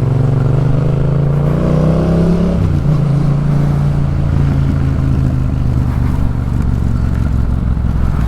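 2018 Yamaha MT-07's parallel-twin engine running through a Jeskap K4 full aftermarket exhaust on the move: the revs climb for about two and a half seconds, drop sharply, then hold steady at lower revs. Sporty but not too loud.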